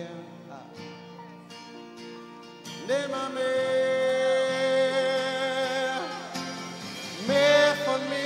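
Slow live worship music. Quiet plucked-string and held chord notes play, then a singer comes in about three seconds in, sliding up into one long held note, and comes in again near the end.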